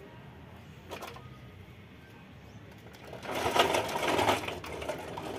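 A rapid, loud rattling clatter of many quick strokes that starts about three seconds in and lasts about two and a half seconds, after a single faint click about a second in.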